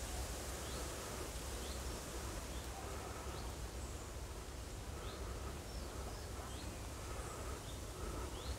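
Faint outdoor ambience: small birds chirping, short high notes about once a second, over a steady low rumble and hiss.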